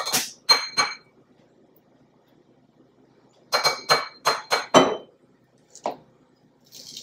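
Plastic measuring spoon clinking against a glass mixing bowl while stirring a sauce: a few quick ringing clinks, a pause of about two and a half seconds, then a quick run of about five more and one last clink.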